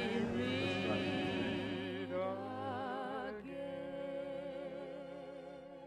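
Music with long held notes, each with a wavering vibrato, slowly fading out.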